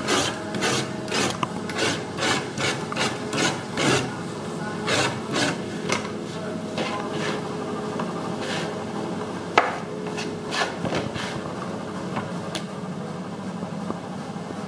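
Rotary cutter rolling through jute burlap sacking on a cutting mat: short rasping strokes, about two or three a second, for roughly the first half. Then the strokes stop and the cut pieces are scraped off the mat and swept into a plastic bucket as a steadier rubbing, with one sharp click partway through.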